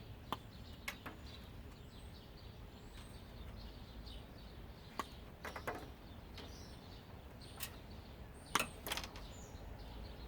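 Sparse light clicks and taps of wiring and small parts being handled while a washing machine is stripped for scrap, the loudest pair of knocks near the end. A few faint high bird chirps over a low steady background hum.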